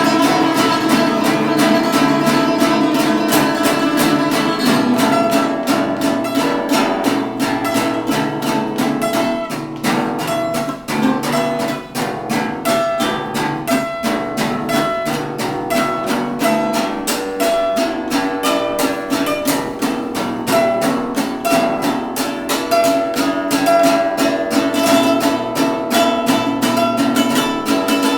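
Instrumental acoustic blues: acoustic guitar and ukulele strumming a steady rhythm under a melody line of held notes.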